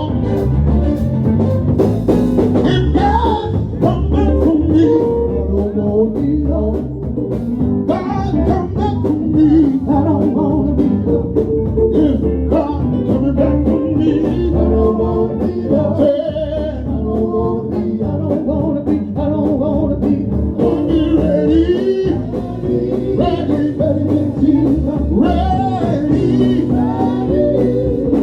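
Live gospel band music with singing: a group playing a song with guitar and bass under the vocals.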